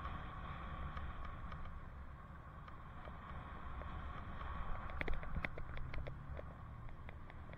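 Riding a bicycle on a city street, heard from a helmet-mounted camera: steady wind and road rumble, with a cluster of short clicks and rattles about five to six seconds in.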